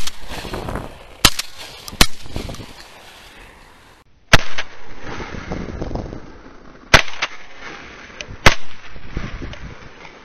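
Shotgun fired at passing ducks: three quick shots, then three more, each report echoing away.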